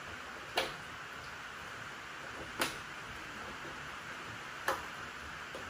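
Three short sharp clicks about two seconds apart as the wire body clips are pulled from the body posts of an RC car's shell, over a steady faint hiss.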